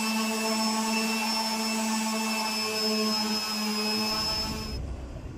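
Handheld electric drill running at a steady speed into a wooden frame, a constant whine that stops near the end.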